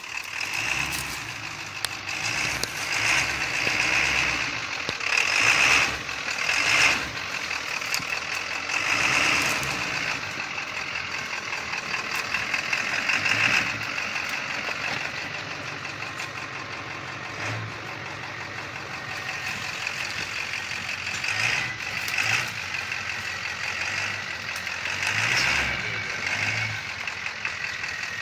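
Ford F-250 pickup's engine running at low speed as the truck crawls past towing a fifth-wheel travel trailer, with its tyres crunching over rocks and gravel. Several louder crunching swells come in the first half.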